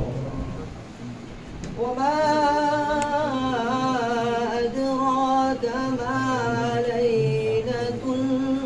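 Unaccompanied voice chanting a mawlid in Arabic, coming in about two seconds in with long held notes that slide from pitch to pitch. A low murmur and shuffling come before it.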